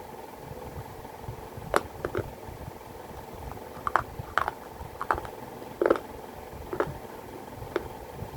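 Close-up crunching as pieces of baked clay pot are bitten and chewed: a string of sharp, irregular crunches roughly every half second, over a steady low hum.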